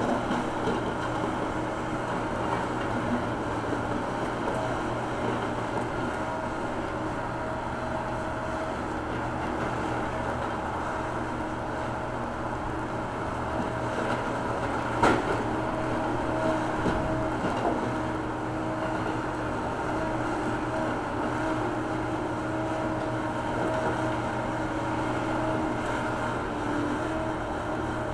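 John Deere backhoe loader's diesel engine running steadily, with one sharp knock about halfway through.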